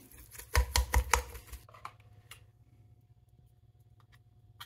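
Wire potato masher clicking and scraping against the inside of a stainless steel pot as it works through mashed potato filling, for about the first second and a half. After that come only a few faint taps.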